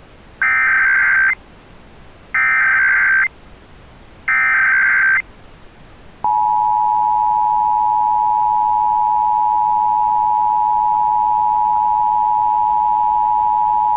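Emergency Alert System SAME header: three short bursts of digital data tones about a second apart, then the two-tone EAS attention signal (853 and 960 Hz together) starting about six seconds in and holding steady. Together they open an EAS Required Monthly Test.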